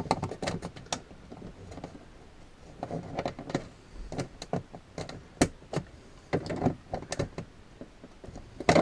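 Hard plastic cable conduit being handled and pried at: irregular sharp clicks and knocks with short bursts of scraping. The old plastic is brittle and sharp.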